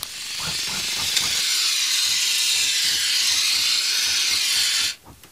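Aerosol can of expanding foam spraying: a steady hiss that swells over the first second or so, holds, and cuts off suddenly near the end.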